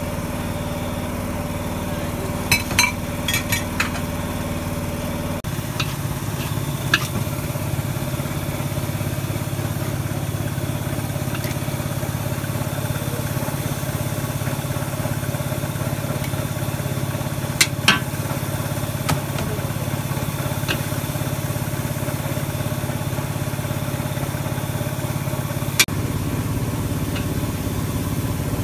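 A small engine humming steadily at idle, with a few sharp clinks of a metal serving scoop against ceramic plates as fried noodles are dished up.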